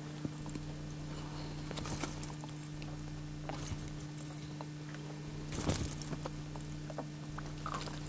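Umbrella rig being handled: light clicks and jingles of the wire arms and lures, with a stronger rattle about five and a half seconds in, over a steady low hum.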